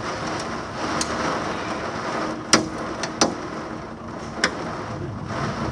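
Torrential thunderstorm rain hissing steadily, with several sharp, irregular knocks of hailstones striking close by, the loudest about two and a half seconds in.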